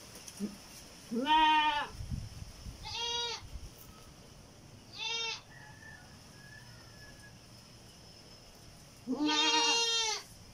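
Heavily pregnant nanny goat close to kidding, bleating four times. A loud bleat comes about a second in, two shorter ones follow, and a long bleat comes near the end.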